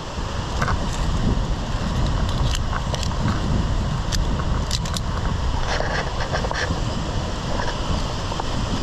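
Steady low wind rumble on the microphone, with scattered sharp metallic clicks and clinks from carabiners and hands on steel rebar rungs.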